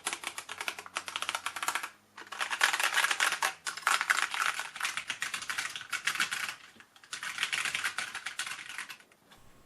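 Rapid typing on a Qeeke CR840 mechanical keyboard with linear key switches: quick runs of clacking keystrokes, with short breaks about two seconds in and about seven seconds in. The typing stops about a second before the end.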